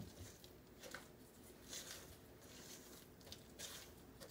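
Faint, soft scraping and swishing strokes of a spatula stirring flour-and-water playdough mixture in a stainless steel bowl, repeated at an uneven pace.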